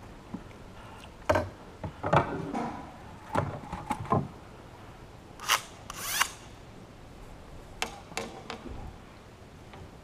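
Scattered knocks, clicks and rubs of fishing gear being handled in a small boat, with two brief sharp noises about halfway through.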